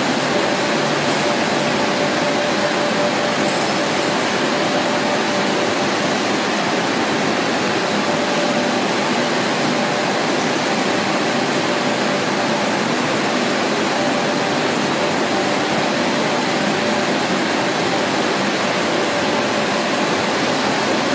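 Pasta production line machinery running: a steady, even whir with a faint steady hum and a few faint high ticks.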